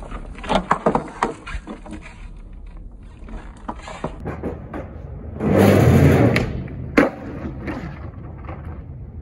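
Skateboard on rough asphalt: a quick run of clacks as the board is popped, flipped and landed, then wheels rolling. A loud scraping rush of about a second comes just past the middle, and one sharp clack follows about a second later.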